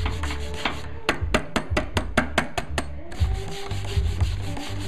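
Wire brush scrubbing back and forth over the abrasive stones of a cylinder hone, clearing off the glazed cast-iron buildup from honing. The scraping speeds into quick, even strokes, about six a second, from about one to three seconds in.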